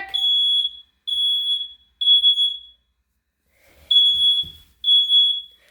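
Smoke detector going off: a high-pitched beep sounding three times, a pause of about a second, then three more, the standard temporal-three alarm pattern. It is set off by smoke from burning cardboard rising to the ceiling.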